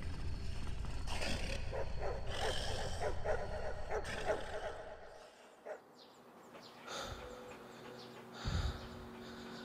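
A dog snarling and growling, a deep rumbling growl broken by open-mouthed snarls, dying away about five seconds in. A soft low thump follows near the end.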